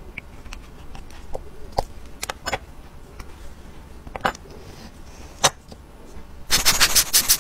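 Scattered sharp clicks and taps of small tools and parts against a Tissot watch case and movement as the watch is taken apart. Near the end comes a quick run of rapid clicking, the loudest part.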